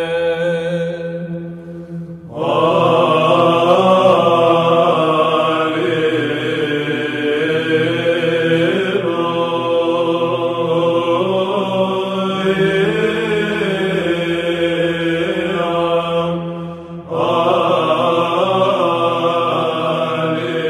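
Byzantine chant sung by a men's choir: a melody moves over a low drone (the ison) held beneath it. The voices dip briefly about two seconds in and again near the end before going on.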